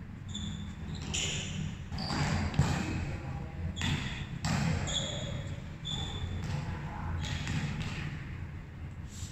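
Volleyballs being struck and bouncing on a hard indoor court floor, a series of separate thuds, with a few short high squeaks, over a steady low hum.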